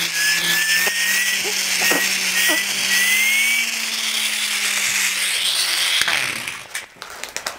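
A child blowing into the turbo of a Tornado blow-powered toy car, spinning its turbine into a steady whir with a whistle that rises in pitch, which stops about six seconds in. A foil packet crinkles near the end.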